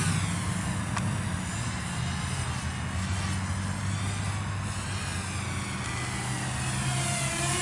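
Walkera F210 racing quadcopter flying, its propellers whining with a pitch that rises and falls as the throttle changes. The whine fades in the middle and grows louder again near the end, over a steady low rumble.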